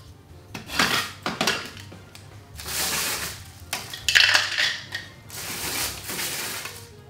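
Crisp baked biscuit offcuts snapped and crunched by hand and dropped into a blender cup, crackling and clattering in uneven bursts.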